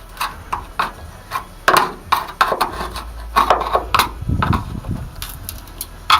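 A hand tool scraping and tapping irregularly at a split seam in an aluminium dinghy hull, working old filler out of it, with a few louder knocks among the scrapes.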